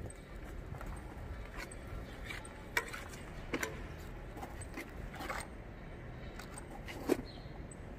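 Small spatula scraping and tapping as thick paste is worked over a concrete slab: a string of light clicks and scrapes, with sharper knocks near three seconds in and again near the end.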